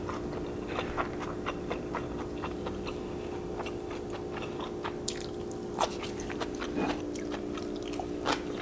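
Close-up mouth sounds of glass noodles being chewed: many small wet clicks and smacks, a few louder ones near the end, over a steady hum.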